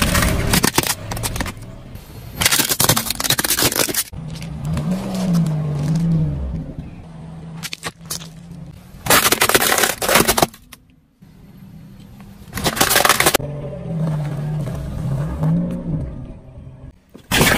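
Car tyre rolling over and crushing objects on asphalt: a series of about five loud cracks and crunches, some lasting a second or more, with quieter stretches and a low wavering hum between them.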